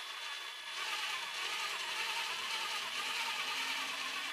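Small electric winch on a radio-controlled crawler truck running under load, reeling in its cable to lift a heavy steel model excavator. The motor and gear noise comes up about a second in, holds steady and stops abruptly.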